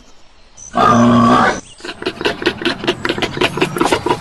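Warthogs grunting: one loud, low, drawn-out call lasting under a second, then a fast run of short grunts, about five a second.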